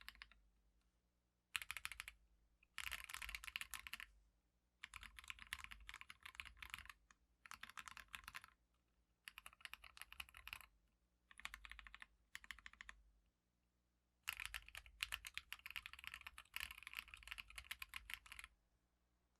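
Typing on a split ortholinear mechanical keyboard with Everglide Orange switches and SP SA keycaps in a 3D-printed O-ring-mount case: rapid runs of keystrokes in bursts of one to four seconds, separated by short pauses.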